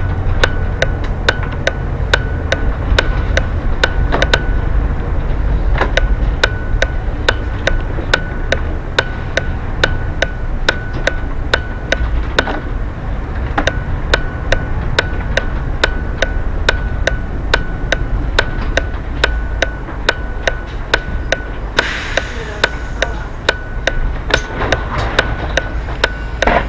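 Bus turn-signal indicator ticking steadily, about one and a half ticks a second, over the low rumble of the bus's engine as it pulls into the stop. A short burst of hiss comes near the end.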